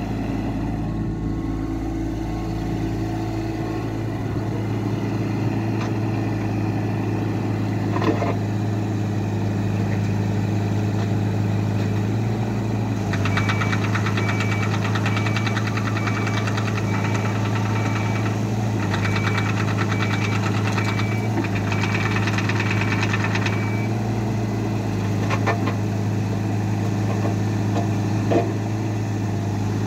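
CAT 302.4 mini excavator's diesel engine running steadily as the hydraulic arm and bucket are worked. From a little before halfway and for about ten seconds, the machine travels on its tracks with a rapid clatter and a high tone in short pulses. A few single clunks come from the arm and bucket.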